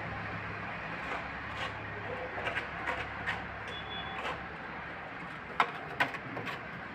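Repair work on an excavator: a steady low machine hum that fades out about two seconds in, then scattered clicks and knocks, with two sharp loud knocks about a second apart near the end.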